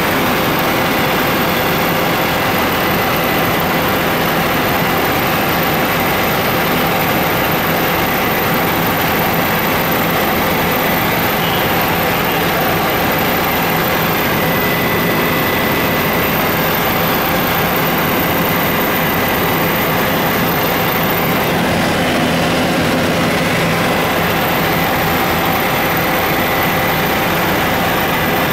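Helicopter engine and rotor noise inside the cabin: a loud, steady drone with faint steady tones over it.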